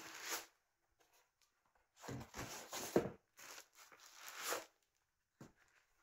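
Plastic bag crinkling and dense foam packing blocks rubbing as the foam end caps are pulled off a plastic-wrapped boxed speaker, in a few short bursts of rustling.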